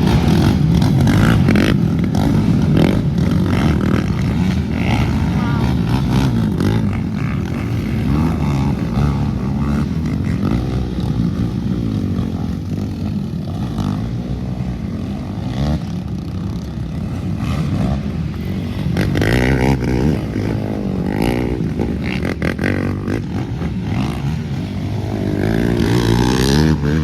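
Racing quad (ATV) engines revving hard as riders pass, the pitch climbing and dropping again and again with throttle and gear changes. Loudest near the start, around two-thirds through, and again near the end.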